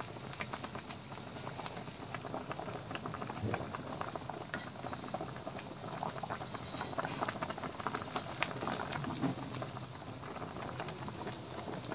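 Pot of water at a rolling boil with fettuccine cooking in it: a steady bubbling hiss full of small pops and crackles.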